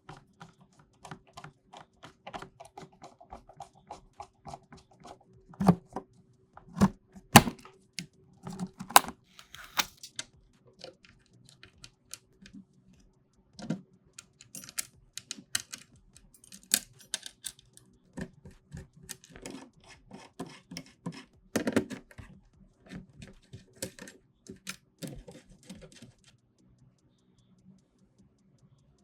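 Irregular clicks, taps and knocks of computer parts and their packaging being handled and fitted during a desktop PC build. There are several louder knocks about six to seven seconds in and again past twenty seconds, and the handling stops a few seconds before the end.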